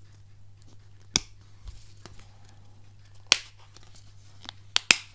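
Sharp plastic clicks from a two-part plastic-and-rubber phone case as its fold-out kickstand is worked: one about a second in, another a little after three seconds, and two close together near the end.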